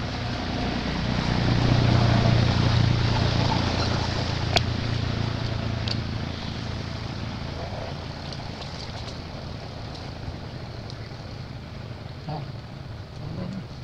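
A motor vehicle passing on a nearby road: its low engine hum swells about two seconds in, then fades away over the next few seconds, over steady outdoor wind noise. There is a single sharp click about four and a half seconds in.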